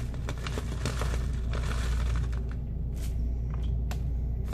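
Grated Parmesan shaken from a plastic canister into a bowl: a run of quick light ticks and rustles that thins out after about two and a half seconds, leaving a few scattered ticks. A steady low hum runs underneath.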